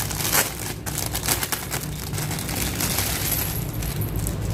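A hanging bird toy with small metal bells being handled and unwrapped: irregular rustling and clicking, with the bells jingling faintly.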